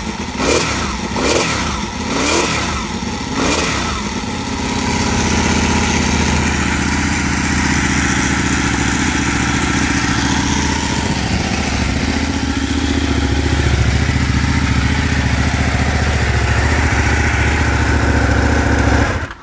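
Ducati 899 Panigale's Superquadro L-twin engine, loud, blipped about four times in quick succession, then running steadily until it stops abruptly near the end.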